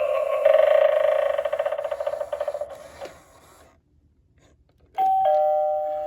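Animated novelty Halloween doorbell playing its sound clip through a small speaker: a rapidly pulsing electronic sound effect that fades out about three and a half seconds in. After a short gap, a steady electronic ding-dong chime starts abruptly.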